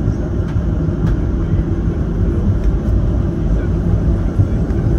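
Steady low rumble in the cabin of a Boeing 737-700 on the ground before takeoff, with a few faint clicks.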